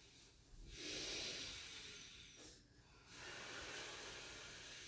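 A person taking slow, deep breaths as a yoga breathing cue: two long, airy breaths, one about a second in and the next about three seconds in.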